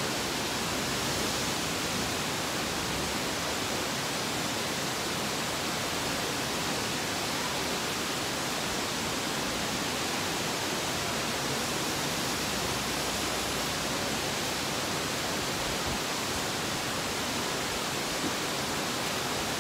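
A steady, even hiss that holds at one level throughout, with no thumps or other distinct events.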